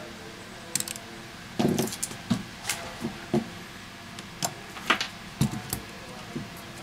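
Irregular light clicks and taps of a smartphone being handled during repair: metal tweezers and plastic phone parts knocking together.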